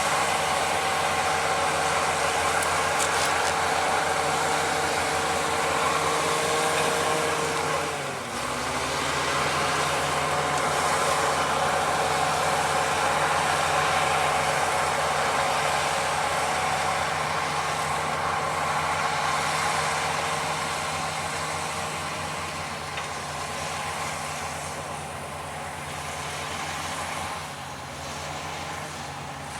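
Heavy earthmoving machine's diesel engine running hard; about eight seconds in its note drops sharply as the revs fall, then it runs on steadily and grows gradually quieter toward the end.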